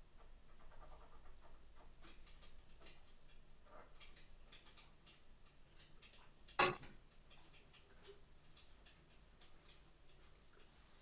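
Faint clicks and rustles of things being handled in a kitchen, with one sharp knock just past the middle.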